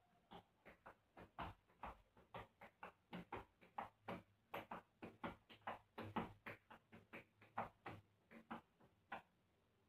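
Tap shoes striking a tiled floor in hoofing footwork: a quick, uneven rhythm of sharp taps, about four a second, that stops about a second before the end.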